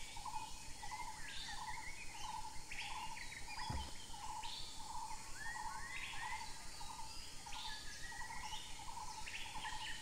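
Jungle ambience: birds calling with short chirps and rising notes, over a low trilling call repeated steadily about three times every two seconds.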